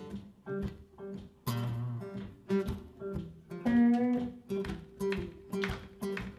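Acoustic guitars playing an instrumental blues passage, a run of sharply plucked notes and strums that ring out and decay.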